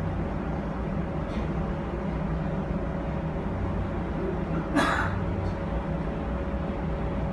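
Inside a Bombardier Flexity streetcar: a steady low rumble and hum from the car, with one brief sharp clack about five seconds in.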